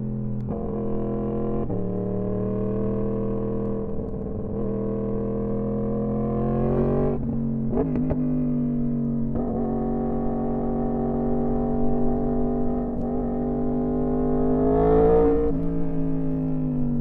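Yamaha R1M's crossplane inline-four engine pulling under throttle, its pitch climbing slowly and then dropping sharply at each gear change or roll-off. Larger drops come about seven seconds in and again near the end, with a few quick throttle blips just after the first.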